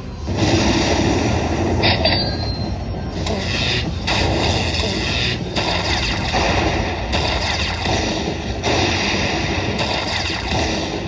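Slot machine sounds over the din of a casino floor, coming in repeated chunks about every second and a half.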